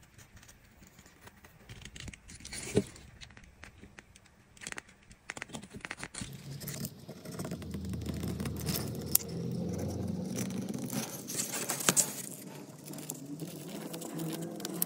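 Small workbench handling noises: scattered sharp clicks and taps with scraping and rubbing, sparse at first and busier from about six seconds in.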